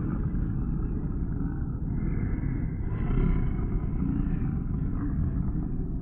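Sound effect of creatures in a lair: continuous low, rumbling growls with no break.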